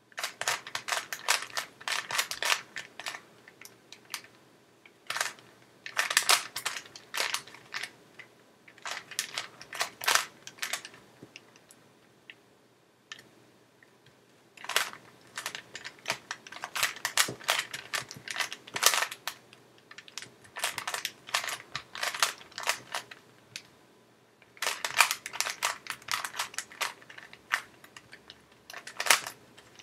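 Rubik's Cube being turned quickly during a solve: bursts of rapid plastic clicking from the layers snapping round, broken by short pauses.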